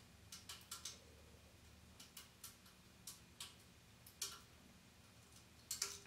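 Near silence, broken by faint, irregularly spaced short clicks.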